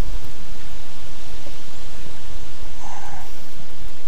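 Wind buffeting the camera microphone: a loud, steady rush of noise with a deep rumble beneath it.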